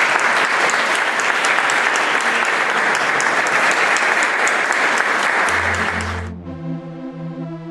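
A room of people applauding with steady, dense clapping, cut off abruptly about six seconds in as music with long held notes takes over.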